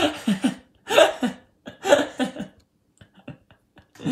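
A man's voice making three short non-speech vocal sounds about a second apart, followed by a few faint clicks near the end.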